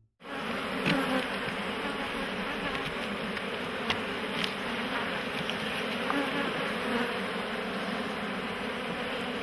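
Honeybees buzzing steadily around an open hive, with a few light clicks.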